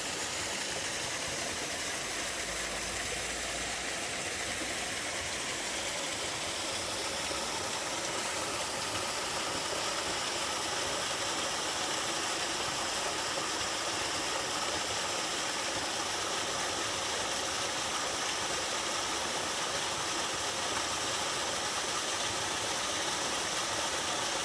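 Waterfall in a mountain stream pouring steadily, an even rushing hiss that holds constant and sits mostly in the high range.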